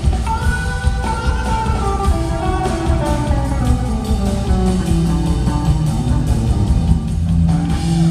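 Live soul-rock band playing an upbeat number on electric bass, drums and keyboard. A pitched line slides steadily down over several seconds and settles on a held low note.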